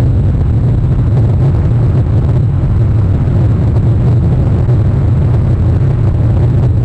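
Steady low rumble from an outdoor wildlife webcam's microphone, even throughout, with no distinct calls or knocks.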